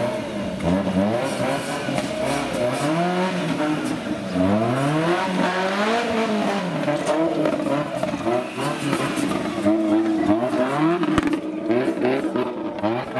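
Off-road competition Suzuki Jimny's engine revving up and down over and over, its pitch rising and falling as the driver works the throttle through a trial section.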